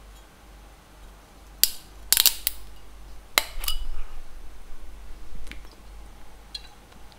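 Screw cap of a glass wine bottle being twisted open: a few sharp clicks and cracks as the cap's seal breaks, the loudest about two seconds in.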